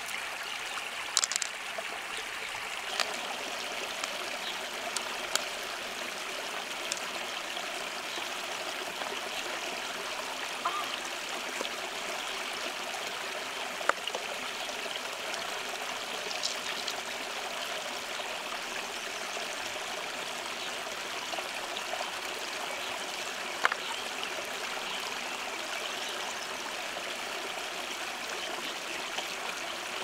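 Steady rush of flowing river water, with a few scattered sharp clicks.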